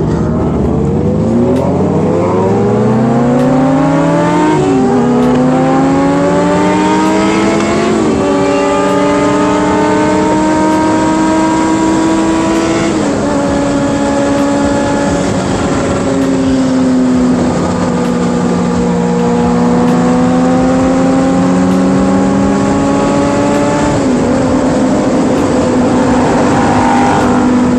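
Kawasaki Ninja ZX-6R 636 inline-four engine accelerating hard from the rider's seat: the revs climb and fall back at each upshift, about four shifts, the first after about five seconds, with a long stretch of steady high-speed cruising between the later ones.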